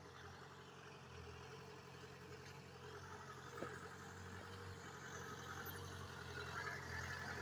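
Mahindra jeep's engine running steadily as it drives through a shallow rocky river, growing louder as it approaches, with water splashing around the wheels toward the end.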